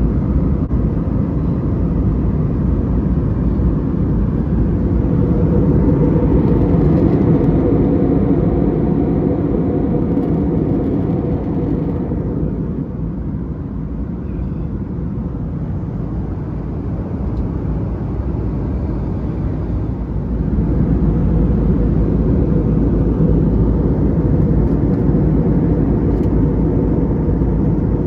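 Steady rumble of a jet airliner in flight, engines and airflow heard from inside the passenger cabin, a little quieter for several seconds midway.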